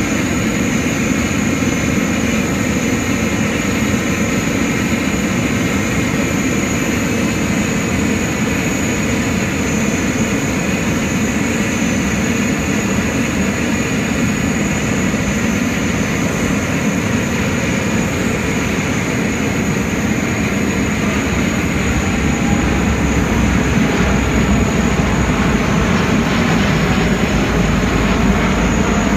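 Airbus A330neo's twin Rolls-Royce Trent 7000 turbofans heard from the ground as the airliner passes overhead: a continuous jet rumble that deepens and grows louder about three-quarters of the way through.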